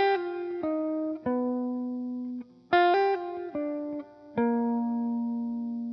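Music: a plucked guitar plays two short phrases of single notes, each note struck and left to ring, with a brief pause between the phrases.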